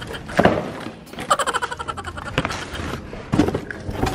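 Several knocks and thuds as a cardboard box of snacks and a small wheeled hand cart are handled and moved.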